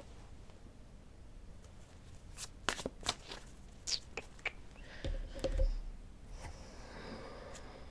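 A deck of cards being handled and shuffled by hand: a run of light snaps and slaps, with a dull thump about five seconds in.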